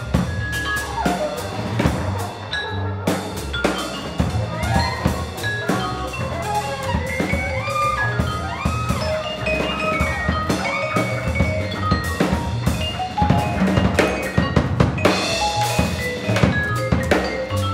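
Small jazz group playing live: a busy drum kit with snare and bass drum hits drives the music, with horn and vibraphone lines over a double bass, and a cymbal wash near the end.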